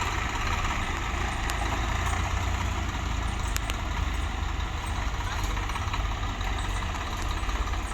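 Heavy diesel machinery engine running steadily at a constant speed.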